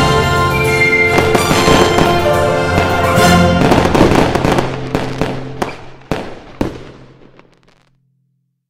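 Fireworks bursting and crackling over music, the whole fading out, with three last sharp bangs about half a second apart in the second half.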